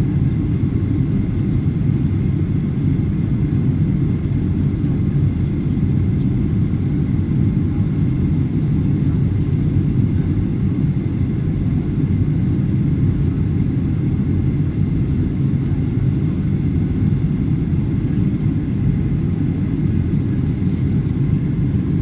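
Steady low rumble of jet engine and airflow noise heard inside an airliner's cabin from a window seat beside the turbofan engine, with a faint steady whine above it, as the plane descends to land.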